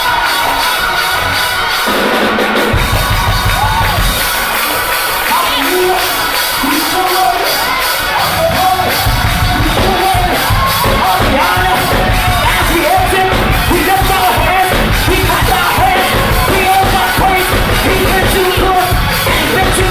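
Gospel choir singing with a live band, bass and drums. The heavy bass and drums come in strongly about nine seconds in.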